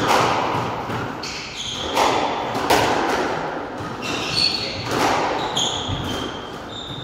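Squash rally: racket strikes and the ball smacking the front and side walls every half second to second, echoing round the court, with short squeaks of shoes on the wooden floor.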